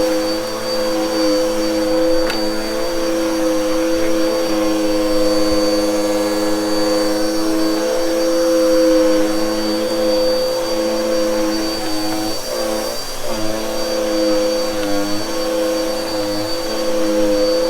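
Bissell vacuum cleaner running steadily over a shag rug, a droning motor hum whose pitch wavers and dips briefly about two-thirds of the way through.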